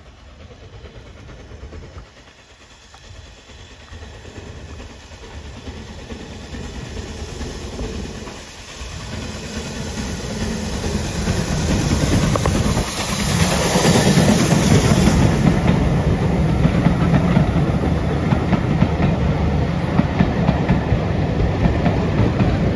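BR Standard Class 4 2-6-4 tank locomotive No. 80078 approaching under steam with a train of coaches, growing steadily louder and passing close a little past the middle, followed by the coaches rattling by on the track.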